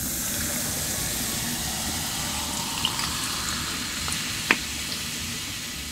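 Liquid being poured in a steady stream, easing off slightly toward the end, with a brief light clink about four and a half seconds in.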